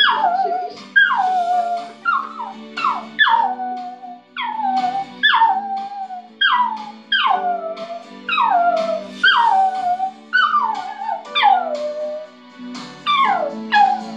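A small wire-haired terrier howling along to music from a television: a string of howls about one a second, each sliding sharply down in pitch, over the TV's steady held tones.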